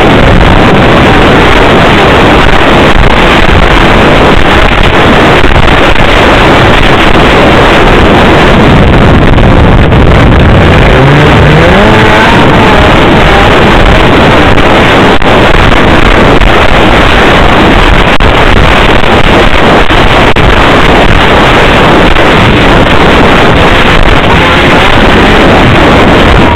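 Snowmobile engine running at speed under heavy wind buffeting on the microphone, loud throughout; around the middle the engine note rises briefly as it speeds up.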